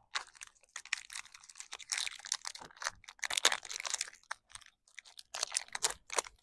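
Thin plastic wrapper crinkling and crackling in irregular sharp bursts as a clay bar is peeled out of its packaging.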